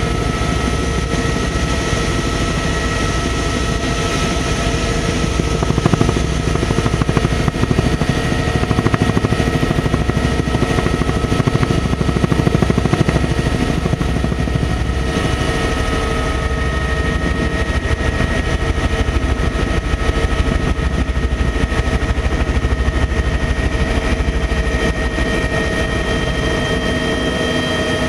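Tour helicopter in flight: a steady engine whine over the rapid beat of the rotor, loud and unchanging throughout.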